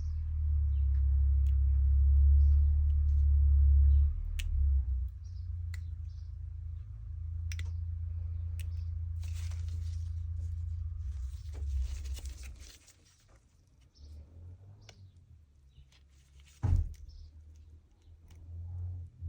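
Handling sounds from stripping down a CO2 replica revolver: scattered small clicks and a few seconds of rubbing and rustling over a low hum that stops about two-thirds of the way through, then one sharp knock near the end.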